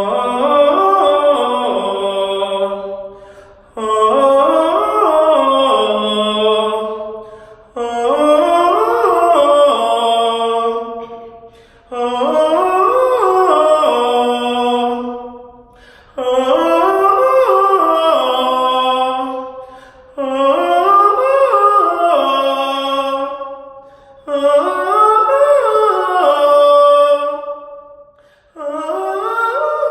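A male tenor singing vocal warm-up exercises: eight phrases, one about every four seconds, each running up the scale and back down, with short pauses between them.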